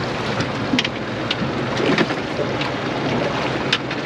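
Wind on the microphone and waves slapping against a fishing boat: a steady rushing noise with scattered small clicks and knocks.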